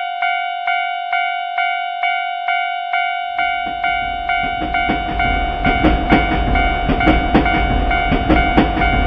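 Japanese railroad crossing warning bell ringing 'kan kan' at about two strikes a second. About three seconds in, a train starts passing: a low rumble with rhythmic clacking of wheels over the rail joints, louder than the bell.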